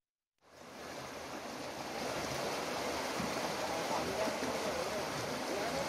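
Floodwater rushing down a narrow lane, a steady rush of water that comes in about half a second in and swells over the next second.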